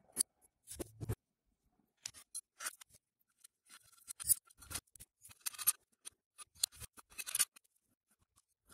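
A small propeller and a threaded-rod drive shaft being handled and fitted together on a tabletop: irregular clicks, clinks and light scrapes, with a duller knock about a second in.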